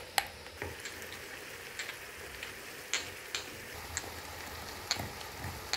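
Black peppercorns poured from a small glass jar rattle into a small mortar, then are struck and crushed with a pestle. Sharp, irregular clicks come about every half second to a second over a faint steady hiss.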